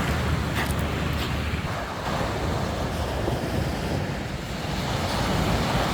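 Steady rush of sea waves on a sandy beach, with wind rumbling on the microphone.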